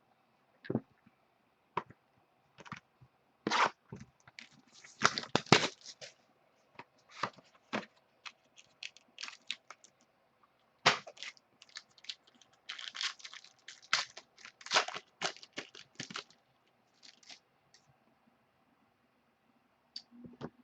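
Plastic wrapping of a baseball card hobby box being torn and crinkled open, with irregular sharp crackles and scrapes as the cards are handled.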